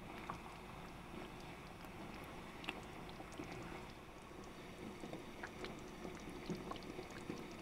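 Chicken curry simmering in a pan on a gas hob, stirred with a silicone spatula: a faint steady bubbling with a few small clicks and scrapes of the spatula against the pan.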